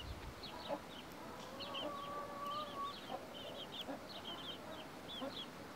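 Buff Orpington chicks peeping in quick runs of short, high chirps, with the mother hen's soft low clucks now and then.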